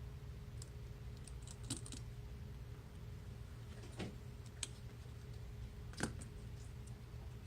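Scattered small clicks and taps of tools and parts being handled while an iPhone 6 is worked on, about eight in all, the sharpest about six seconds in, over a steady low hum.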